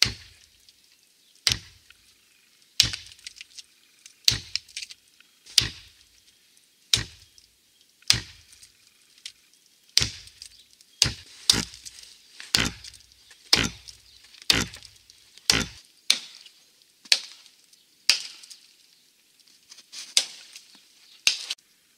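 Wetterlings Bushman axe chopping into the trunk of a small standing ash tree: around twenty sharp, separate strikes, about one every second and a half at first and coming faster in the middle, as the notch is cut to fell the tree.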